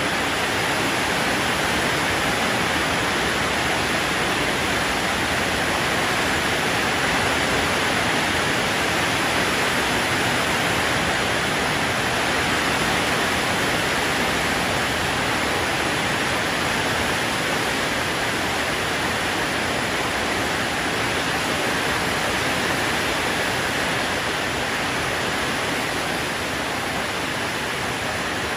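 Heavy rain falling steadily on a flooded yard and the surrounding trees: a dense, even hiss that holds without a break.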